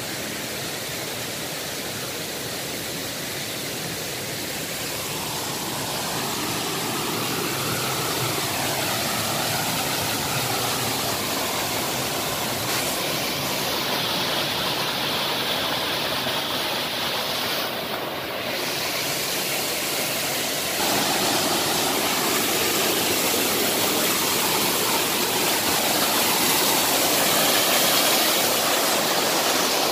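Waterfall pouring over boulders into a rock pool: a steady, dense rush of falling water, a little louder from about two-thirds of the way in.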